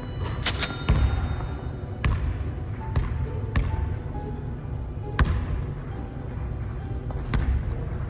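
A basketball bouncing on a hardwood gym floor, a few irregular thuds a couple of seconds apart, with a burst of sneaker squeaks about half a second in. A basket is scored during this play.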